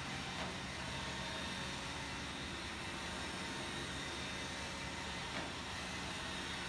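Roomba robot vacuum running, its motor whir and hum mixed with the steady whir of two electric pedestal fans. Two faint ticks, about half a second in and about five seconds in.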